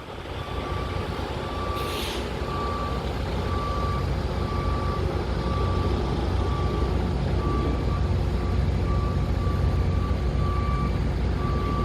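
Backup alarm on heavy construction equipment beeping steadily, about one and a half beeps a second, over a low engine rumble that grows louder over the first few seconds. There is a short hiss about two seconds in.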